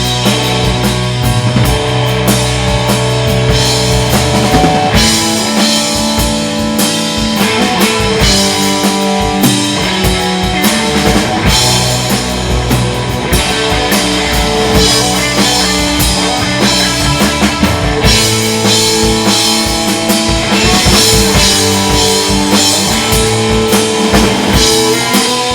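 Rock band playing live: a drum kit keeping a steady beat under held guitar chords.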